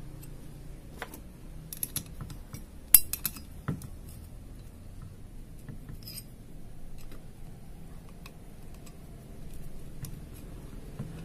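Small steel hand tools (a valve-adjusting tool and a wrench) clinking and tapping against the rocker-arm adjusters of a motorcycle cylinder head while the valve clearance is set: scattered light metal clicks, with a cluster of sharper clinks about two to three seconds in, over a faint steady low hum.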